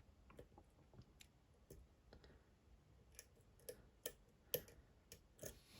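Faint, irregular clicks of a lock pick working the pins inside a Dom IX Twinstar lock cylinder, with a few sharper clicks past the middle, the loudest about four and a half seconds in.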